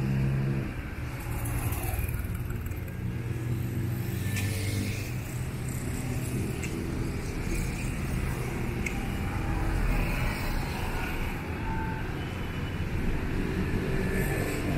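Road traffic: cars and motorcycles driving past, a steady rumble of engines and tyres. One vehicle's engine note fades about a second in, and another engine grows louder near the end.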